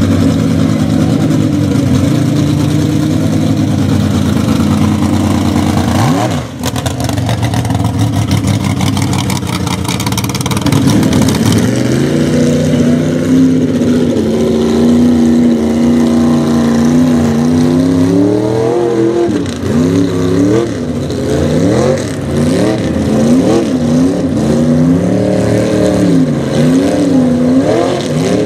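Chevy mega truck's engine pulling through a mud bog: fairly steady at first, then revved up and down again and again in the second half as the big tyres churn the mud.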